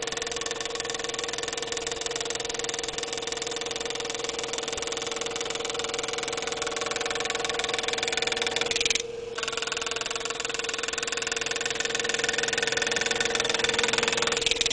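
GRS Gravermeister pneumatic engraving machine driving a square graver into a brass knife bolster: a steady, very rapid buzz of tiny hammer strikes over an even hum. It stops for about half a second around the middle, then starts again.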